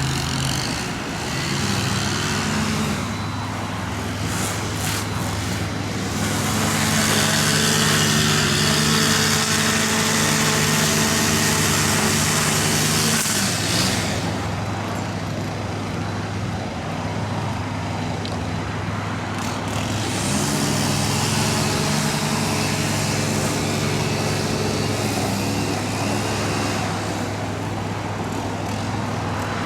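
Large demolition excavator's diesel engine running steadily. A harsher, hissing noise rides over it in two long stretches, from about 3 to 14 seconds in and from about 20 to 27 seconds in.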